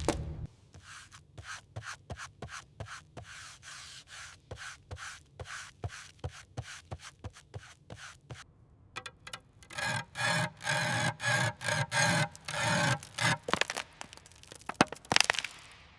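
Repeated rubbing strokes of a hand tool working a surface, about three a second at first. They turn louder and a little slower from about ten seconds in.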